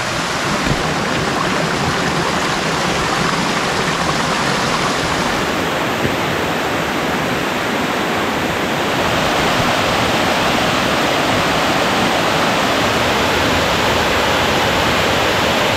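A mountain stream and waterfall rushing steadily over granite rock, getting a little louder and brighter about halfway through.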